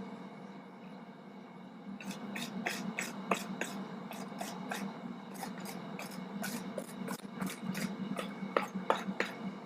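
Steel wire brush scrubbing scale off hot forged steel hooks in quick, irregular strokes that start about two seconds in, over a steady low hum.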